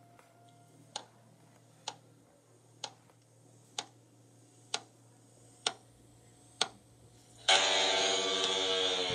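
Seven sharp ticks, evenly spaced about a second apart, over a faint hum. Near the end a much louder sustained pitched sound with many overtones starts suddenly.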